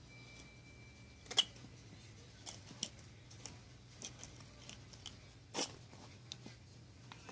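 Puppy's teeth and paws on a small plastic lid: scattered sharp clicks and taps as she chews and bats it, with two louder knocks, one about a second and a half in and one later on.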